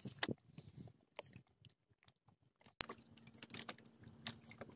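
Faint, irregular clicking and crackling of a spinning reel being cranked and handled. After a sharp click nearly three seconds in, a faint steady low hum joins the clicks.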